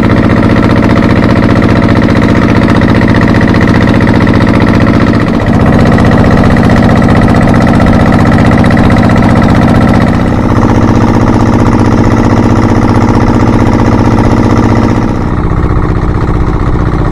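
Motor boat's engine running steadily under way. Its note shifts about five and ten seconds in, and it eases off slightly in the last couple of seconds.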